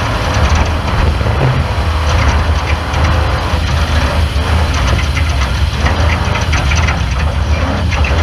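Off-road race car engine running with a steady low drone, overlaid by constant rapid rattles and knocks.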